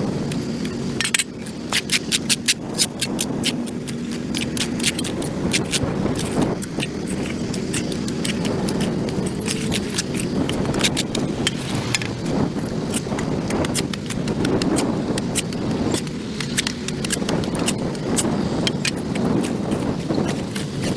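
Hand tool scraping caked dirt and grass off a concrete sidewalk. A quick run of sharp scrapes and clicks comes a second or two in, then steadier, rougher scraping with scattered clicks.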